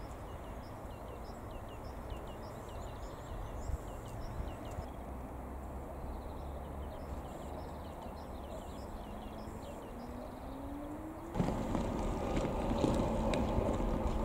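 ChME3 diesel locomotive's six-cylinder engine running as it approaches, first a low distant rumble, then a rising engine note about ten seconds in before the sound suddenly grows much louder as the engine works harder.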